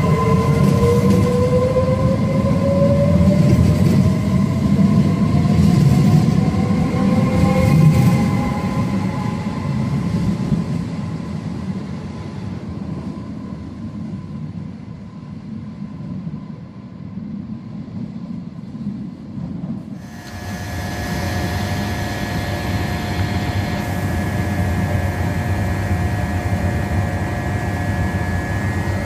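Trenitalia Pop electric train pulling out of an underground station: its traction motors whine, rising in pitch as it gathers speed, over a loud rumble of wheels that fades as it goes into the tunnel. After a sudden cut about two-thirds through, another electric train at the platform gives a steady whine and rumble.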